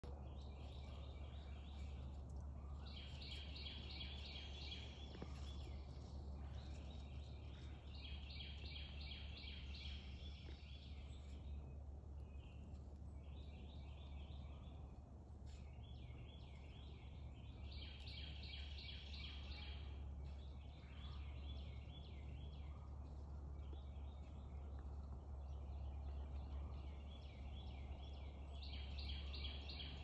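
A small songbird singing rapid trills of short repeated notes, each trill one to two seconds long and repeating every couple of seconds, over a steady low rumble.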